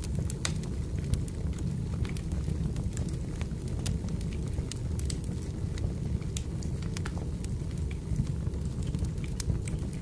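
Wood fire crackling, with irregular sharp pops and snaps over a steady low rumble of burning logs.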